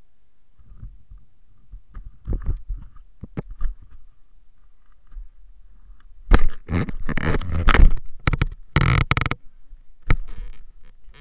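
Handling noise on a small action camera's microphone: fabric rubbing and bumps as the camera is moved about and covered. It starts quietly about a second in and turns loud and rough about six seconds in.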